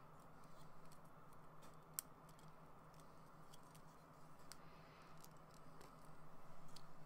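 Faint, scattered clicks of plastic model kit parts being handled and pressed together, with one sharper click about two seconds in, over a steady low hum.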